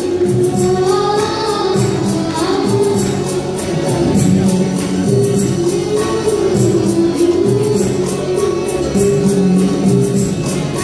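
A live band playing a song: a singer's voice carries a wavering melody over keyboard chords and bass, with a steady beat of high percussion ticks.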